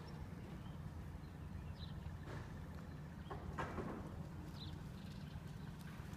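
Steady low wind rumble on the microphone, with a few soft knocks and faint short high bird chirps.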